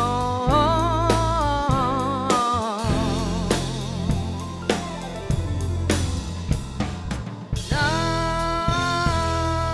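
Live band music with a drum kit playing a steady beat on snare and bass drum under a long, wavering melody line. The melody stops briefly near the end and then starts a new held note.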